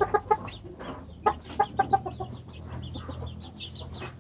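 Rhode Island Red chickens clucking: short, quick clucks in two runs in the first half, then fainter high chirps.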